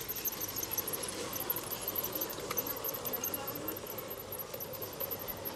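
LGB G-scale garden-railway train rolling along the track, its wheels clicking and squeaking on the rails, with many faint high chirps.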